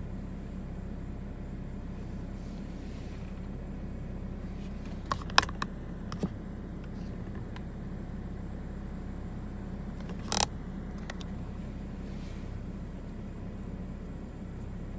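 A steady low hum of urban background noise, such as traffic or machinery, with a few short sharp clicks about five to six seconds in and a louder one about ten seconds in.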